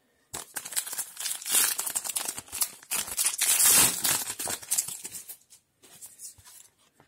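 A foil trading-card booster pack being torn open and its wrapper crinkled by hand, loudest about halfway through, then fainter rustling near the end.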